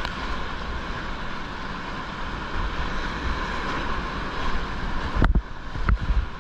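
Whitewater rapids rushing steadily around a kayak. About five seconds in, the boat punches into a breaking wave and water splashes over the bow and onto the camera, with two loud muffled thumps.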